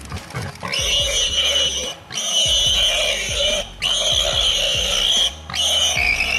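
Warthog screaming in distress as a leopard seizes it: four long, harsh squeals in a row with short breaks between them. Background music plays underneath.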